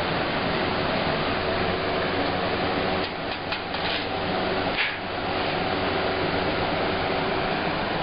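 Steady fan-like rushing noise, with a few light crinkles from aluminium foil pie pans being handled about three to five seconds in.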